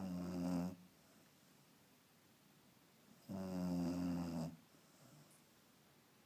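Beagle snoring: two snores, a short one at the very start and a longer one about three seconds in.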